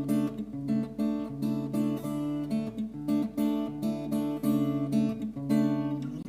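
Acoustic guitar strumming chords in a steady rhythm, with no voice, stopping abruptly at the end.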